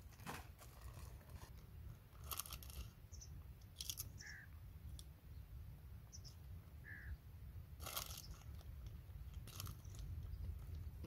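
Plastic snack packet crinkling and crisps being crunched, in a few short bursts.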